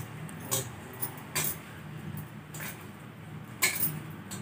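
A hand mixing a mashed potato and grated vegetable filling in a stainless steel bowl, with a few light clinks about a second apart as the bangles on the wrist knock together and against the bowl.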